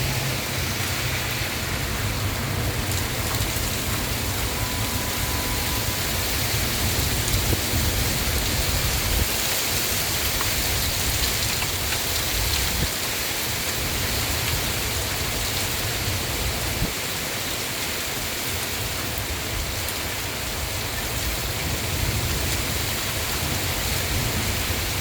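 Heavy rain falling steadily in a thunderstorm, a constant hiss with a low, uneven rumble underneath.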